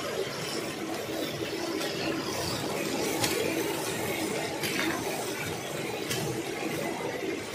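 Chicken pieces sizzling steadily in hot oil in an aluminium karahi as they are half-fried. A metal spoon clinks and scrapes against the pan a few times while the chicken is stirred.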